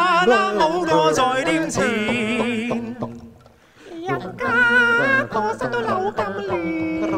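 A cappella group singing, men's and women's voices layered in harmony with vibrato, no instruments. The singing breaks off briefly about three and a half seconds in, then resumes.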